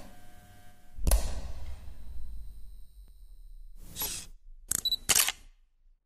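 Camera sound effects: a sharp shutter click at the start, a deep boom about a second in that slowly dies away, a swish near four seconds, then two quick shutter clicks with a short beep near five seconds.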